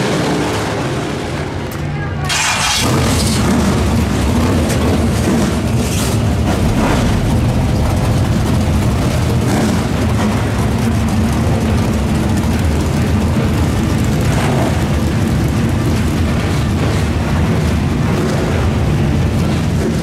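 Race car engines running on a dirt oval for about two seconds, then a steady deep rumble from a field of street stock race cars idling together, lined up on the track.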